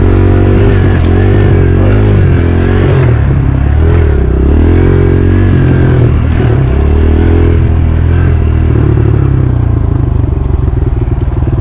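Dirt bike engine running as it is ridden, its pitch rising and falling as the throttle is opened and closed, then holding a steadier note for the last few seconds.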